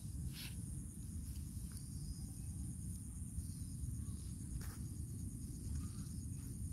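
Open-air field ambience: a steady high-pitched insect chorus over a low rumble, with a few brief rustles in the grass.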